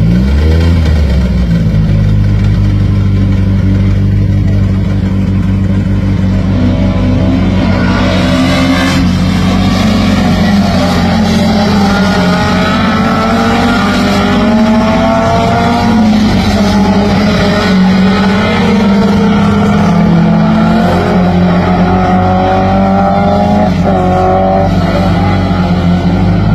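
Rallycross race car engines running hard past the track, several at once, their pitch climbing as they accelerate and dropping back at each gear change.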